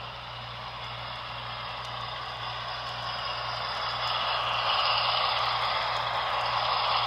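HO scale model train running along the track, the whir and rattle of its wheels and motor growing louder as it approaches, loudest about five seconds in, over a steady low hum.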